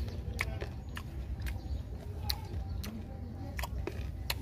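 Mouth sounds of a man chewing green mango: irregular sharp clicks and smacks, about two a second, over a low steady rumble.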